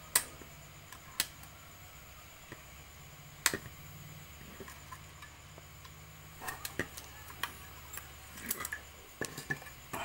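Sharp clicks and small metallic taps of the brake cable being unhooked from a twin-tub washing machine's spin-dryer motor: three loud single clicks in the first few seconds, then a cluster of lighter clicks and knocks near the end. A low steady hum runs underneath.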